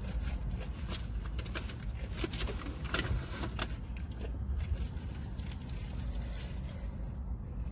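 Close-up chewing of crispy fried chicken, with scattered small crunches and clicks and some rustling of the paper wrapper, over a steady low rumble.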